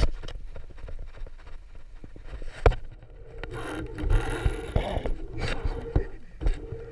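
Fishing reel being handled and cranked: scattered clicks and knocks, one sharp knock a little over halfway through the first half, then a steady whirr from the reel's gears over the last few seconds.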